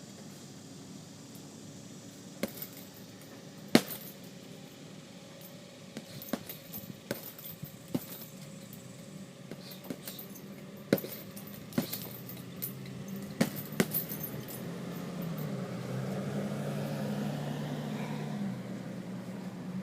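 Boxing gloves striking a heavy bag in a run of irregular sharp thuds, one after another, over a low steady hum that grows louder near the end.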